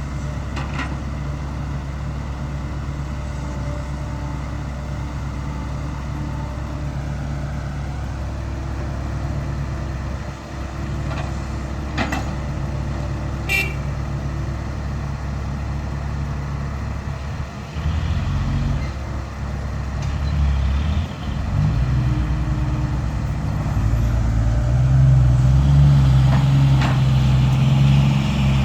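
Dump truck's diesel engine running steadily, then working harder and louder from about two-thirds of the way through. Two short sharp clicks sound near the middle.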